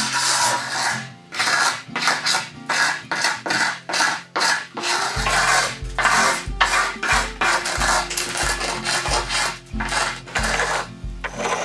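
Hand paint scraper scraping old flaking paint off a wooden window trim board in quick repeated strokes. Background music runs underneath, and a steady bass beat comes in about five seconds in.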